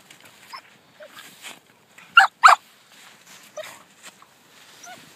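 Australian shepherd puppy giving short, high yips during play: a few soft ones, then two loud ones a fraction of a second apart about two seconds in, and a couple more softer ones after.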